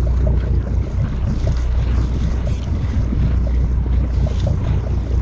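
Wind noise on the microphone over a steady low rumble from the boat and the wash of the sea.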